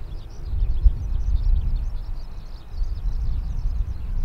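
Many birds chirping continuously over a low, gusting rumble of wind on the microphone.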